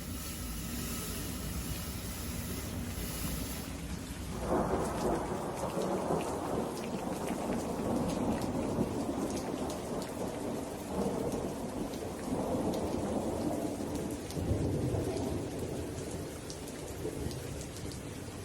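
Thunderstorm ambience: rain hissing steadily, then thunder rumbling in suddenly about four seconds in and rolling on in swells over the rain.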